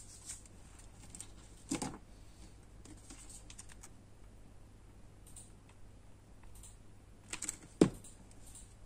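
Small craft tools being handled on a cutting mat: scissors and a hot glue gun give scattered light clicks and taps, with a sharper click about two seconds in. Near the end comes a louder knock as the hot glue gun is set down.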